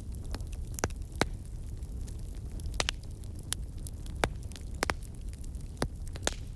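Wood fire crackling: irregular sharp pops and snaps over a steady low rumble of the burning logs.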